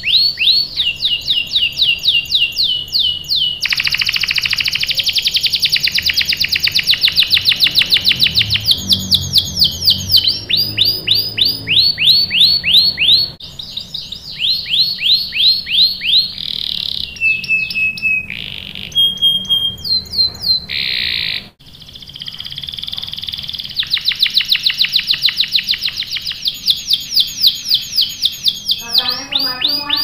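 Canary singing a long rolling song: rapid trills of quickly falling high whistled notes, several a second, with a few short held piping notes in between. The song cuts off for an instant about two-thirds through, then the trills go on.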